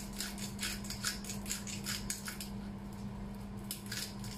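Hand pepper grinder being twisted, cracking black peppercorns: a quick run of dry grinding crunches, about four a second, that thins out after about halfway.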